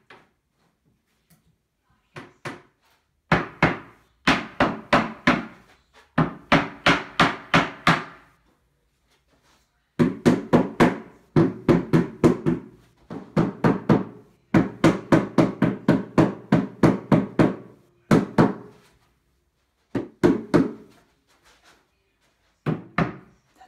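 Mallet knocking an IKEA Kallax shelf panel down onto its wooden dowels: runs of quick knocks, about five a second, each with a brief ringing tone, broken by short pauses.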